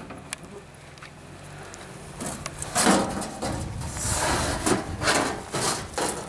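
Scrap metal being shoved and slid into a pickup's bed, scraping and clanking in a run of bursts from about two seconds in, over a steady low engine hum.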